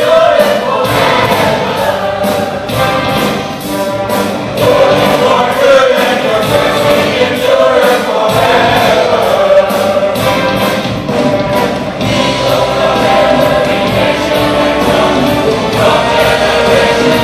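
A large choir singing a gospel-style worship song, backed by an orchestra with violins and cellos and a band with electric guitars, grand piano and drums.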